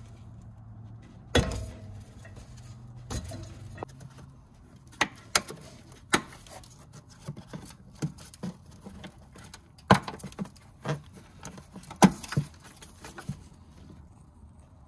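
Plastic wiring clips and electrical connectors on a BMW F80 M3's front strut clicking and rattling as sensor wires are unclipped by hand: a scattered series of sharp clicks, the loudest about ten and twelve seconds in. A low hum underneath fades out about four seconds in.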